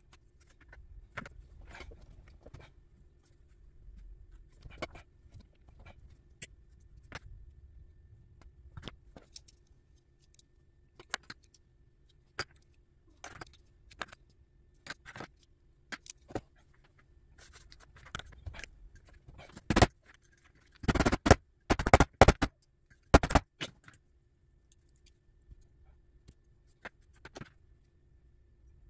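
Small metal parts and hand tools clicking and clinking against each other and the bench as they are handled, with a burst of louder rattling clicks about three-quarters of the way through.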